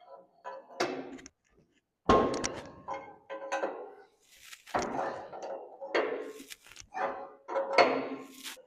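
Heavy metal tractor front-end parts knocking and clanking together as they are worked by hand: a dozen or so irregular knocks with a ringing metallic tone, the loudest about two seconds in. A brief hiss comes about halfway through.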